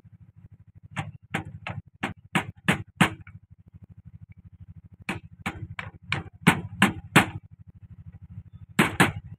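Small steel hammer tapping the end of a Massey Ferguson 1035 hydraulic pump's splined shaft to seat it in its housing. The metal-on-metal taps come in two quick runs of about seven, with a pause between them, then two more near the end.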